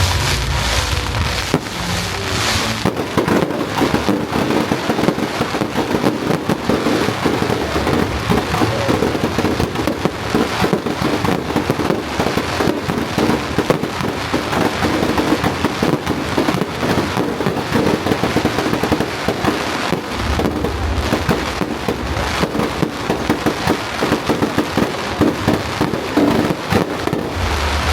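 Fireworks display: a dense, continuous run of rapid crackling and banging shells.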